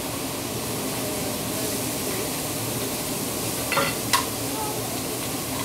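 Food sizzling on a teppanyaki (hibachi) griddle, a steady hiss, with two sharp metallic clinks of the chef's utensils on the griddle a little under four seconds in.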